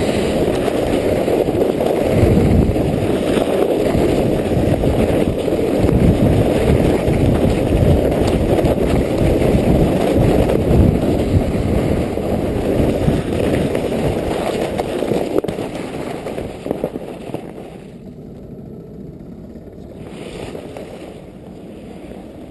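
A towed sled sliding fast over packed snow and ice: a loud, steady, low rushing scrape from the sled's bottom on the snow. It drops away to a much quieter rasp about eighteen seconds in as the sled slows.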